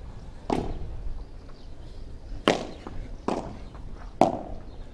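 A padel rally: the ball is struck back and forth with solid padel paddles, giving four sharp pops at uneven intervals, the second and last loudest.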